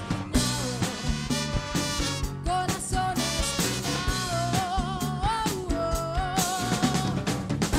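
A band playing live, a woman singing lead with vibrato over drum kit, timbales and congas, with bass and electric guitar.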